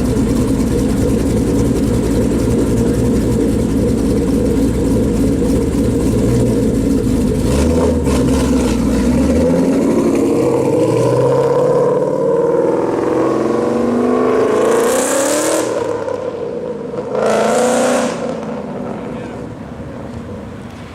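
A car's engine idling with a deep rumble, then pulling away and accelerating, its pitch rising and dropping back as it shifts through the gears. Two short loud bursts come near the end, and the engine sound fades as the car moves off.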